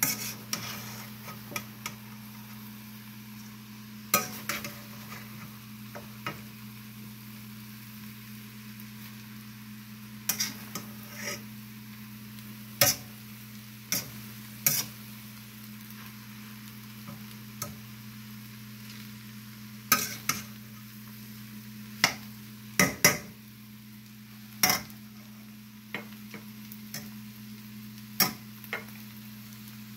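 Metal spatula stirring quinoa and shrimp in a stainless steel pan, making irregular scrapes and clinks against the metal. Under it are a faint sizzle and a steady low hum.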